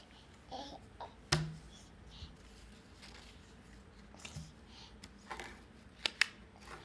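Scattered small clicks and taps of handled objects, the loudest with a soft thud about a second in, and two sharp clicks in quick succession near the end.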